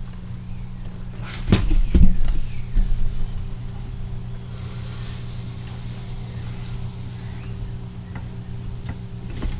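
Steady low hum from a running machine, with a few knocks and thumps about one and a half to three seconds in.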